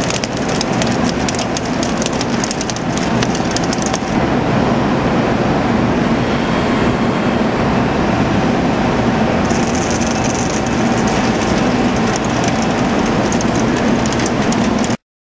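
CNC machining centre heavy-milling steel with a large face-milling cutter under high torque: a steady loud cutting drone with a low hum. Sharp crackling clicks run through the first few seconds, and the sound cuts off suddenly near the end.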